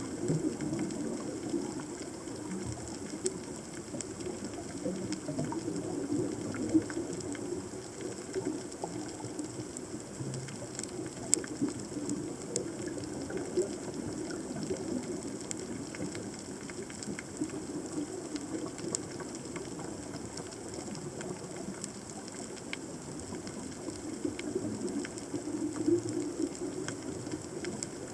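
Underwater reef ambience picked up by a submerged camera: a continual crackle of scattered sharp clicks over a low, steady rumble of moving water, with a faint steady high tone.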